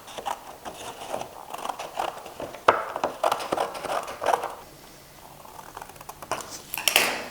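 Scissors cutting through scrapbooking cardboard: irregular snips and the rustle of the card being turned, with a quieter pause in the middle and a busier stretch near the end.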